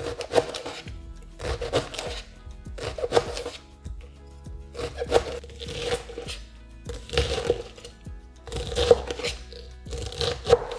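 Background music, with a chef's knife cutting through a leek and tapping a plastic cutting board in repeated strokes, about one a second.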